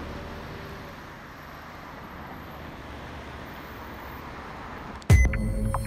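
Steady outdoor city background noise, a haze of distant road traffic. About five seconds in, a sudden loud bass hit cuts in as the song's music starts.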